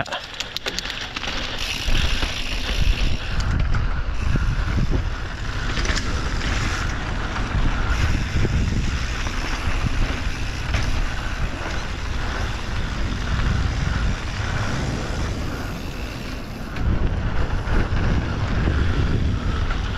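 Wind buffeting the microphone of a mountain bike's on-board camera at speed, a heavy low rumble with the hiss of tyres rolling over dirt and gravel trail. It swells about two seconds in, eases off shortly before the end, then picks up again.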